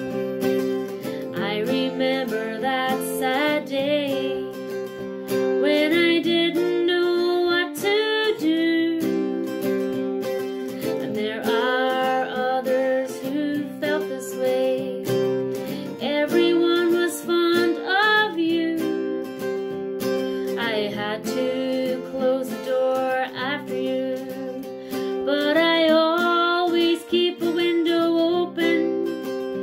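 A woman singing with her own acoustic guitar accompaniment, the guitar capoed; her voice is a bit hoarse. The sung phrases come with short breaks while the guitar plays on.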